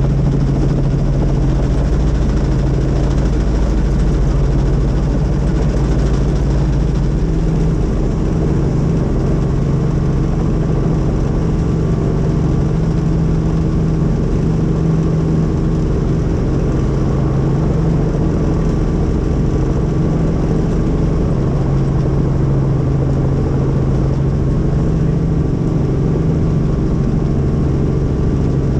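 Helicopter engine and rotor running steadily, a loud continuous drone with a strong low hum; the deepest rumble eases about eight seconds in.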